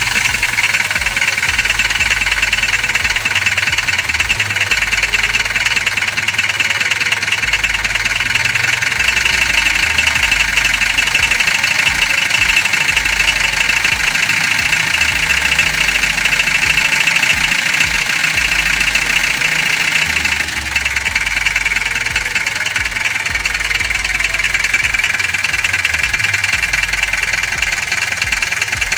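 Mazda 3.0-litre diesel engine running steadily at idle with a fast, even clatter. Engine flushing oil has been added to its old, sludgy oil and the engine is being run for about three minutes before the drain.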